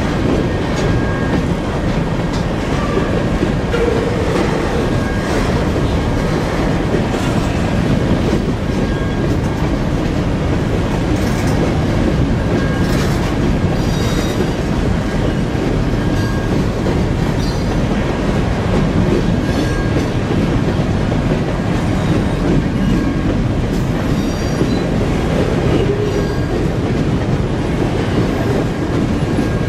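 Herzog ballast hopper cars rolling past on steel rail: a steady rumble of wheels on track, with thin high wheel squeals coming and going, a few briefly louder about halfway through.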